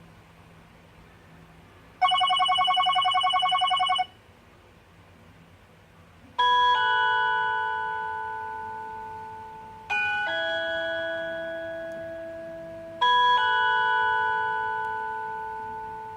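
HTC Desire 601 ringtones played from the phone's speaker. First comes a fast electronic trill lasting about two seconds. After a short gap a doorbell-like chime ringtone begins, each two- or three-note phrase struck sharply and fading out, a new phrase about every three and a half seconds.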